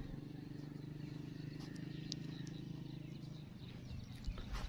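Open-field ambience: a steady low hum that fades out about three and a half seconds in, a few small bird chirps, and footsteps on dry stubble, with a couple of low thumps near the end.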